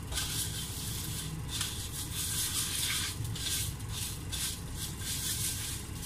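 Fingers stirring sugar and salt into a little water in a stainless steel bowl, rubbing against the metal in a run of repeated swishes.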